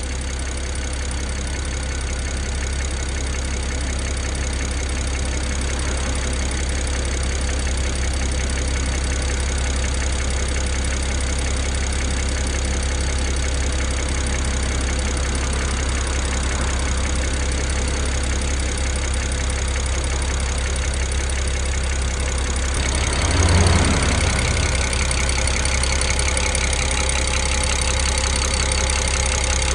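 BMW N54 twin-turbo inline-six idling steadily, its high-pressure direct injectors ticking loudly because the sound-absorbing top engine cover is off. This loudness is normal for this engine and is not a fault. About two-thirds of the way through, the sound gets sharper and a little louder.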